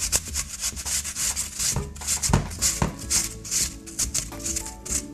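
A cooking apple being grated by hand on a grater: repeated rasping strokes, a few a second, with a knock about two seconds in, the strokes tailing off near the end.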